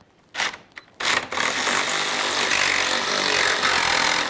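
Cordless power tool with a 10 mm socket running steadily as it backs out a bolt. It starts about a second in, after a short knock.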